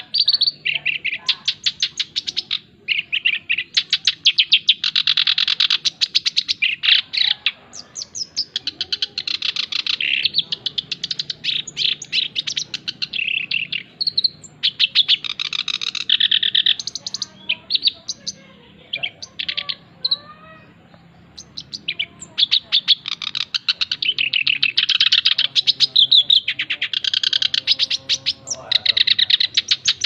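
Male black-browed reed warbler singing: long phrases of rapid notes run together, broken by short pauses, with a quieter stretch of softer notes around the middle.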